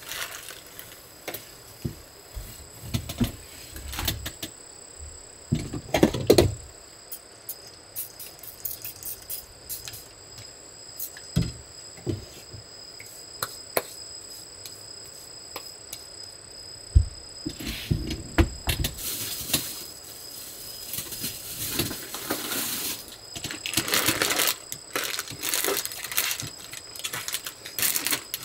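Close-up handling sounds at a wooden table: a wet wipe rubbing over the tabletop, with scattered taps and a few knocks. In the second half a plastic packet crinkles as it is handled and torn open.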